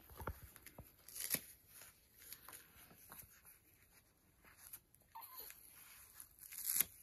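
Soft rustling of baby clothes with a few small clicks as press-stud fasteners on a newborn's bodysuit are done up.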